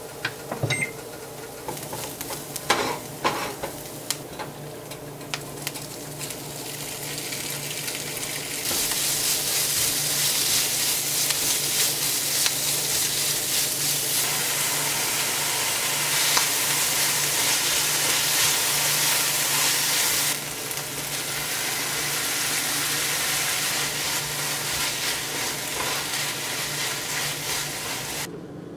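Spatula knocks and scrapes against the pan in the first few seconds, then a steady sizzle of pork and onion frying in a nonstick frying pan as they are stirred. The sizzle drops a little about two-thirds of the way through.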